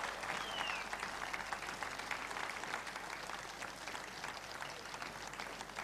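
Audience applauding, dense hand-clapping that slowly dies down, with a brief falling tone about half a second in.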